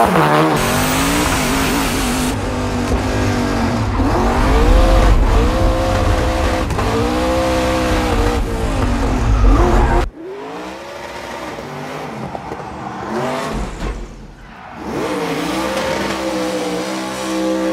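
Competition car engines revving hard up and down again and again while drifting: Ken Block's Ford Fiesta rally car, then the V8 Ford Mustang Hoonicorn, with tyres squealing. The second half is quieter.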